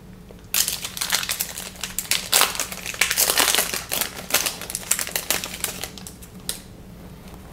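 Foil trading-card pack crinkling and rustling as it is torn open and handled: an irregular run of crackles starting about half a second in and stopping near the end.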